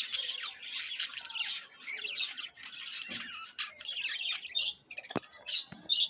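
Many caged budgerigars chattering together in a dense mix of chirps and squawks, thinning out near the end. A single sharp knock about five seconds in.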